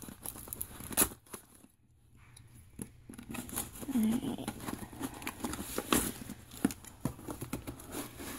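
Cardboard shipping box being worked open with a letter opener: scraping, tearing and rustling of cardboard and packing tape, with a sharp knock about a second in. The handling stops for a moment, then starts again.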